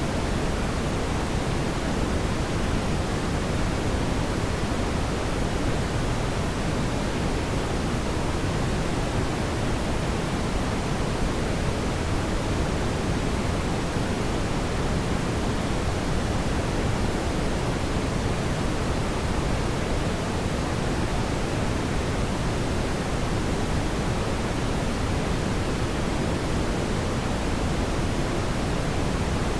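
Steady, even rushing hiss of a fireplace ambience recording, with no distinct crackles or pops standing out.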